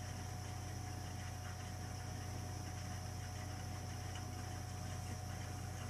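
Burnham Alpine ALP150W gas-fired boiler running with a steady low hum and a fainter steady higher whine, the unexplained strange noise it often makes while firing.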